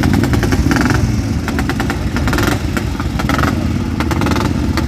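Vintage motorcycle engines running loud and steady close by, with a rapid exhaust beat.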